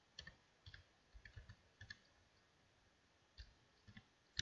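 Faint, irregular keystrokes on a computer keyboard as a command is typed: a quick run of clicks in the first two seconds, then a few scattered ones, the sharpest at the very end.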